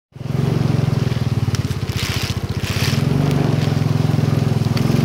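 Motorcycle engine running at low revs with a fast, even putter, rising slightly about three seconds in, over a steady hiss of rain, with two short rushes of hiss a little after two seconds.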